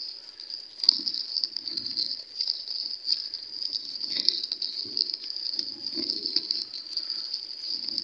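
Hands rummaging through and pulling apart dry coconut coir fibre: a crackling, rustling sound over a steady high-pitched buzz.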